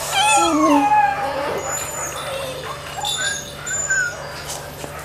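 Sled dogs whining and howling in high, sliding cries, several voices overlapping, loudest in the first second and a half, then fainter, shorter calls.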